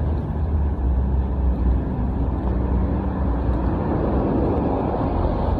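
Steady vehicle running noise: an even low hum with a wide hiss above it, unchanging throughout.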